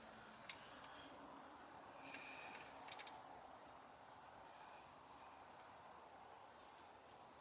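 Near silence of outdoor ambience, with faint, short, high chirps scattered through and a few soft clicks.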